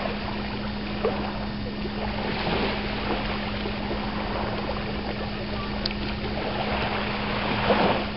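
Steady beach ambience: a hiss of wind and lapping water under a constant low hum, with a few soft knocks about a second in and near the end.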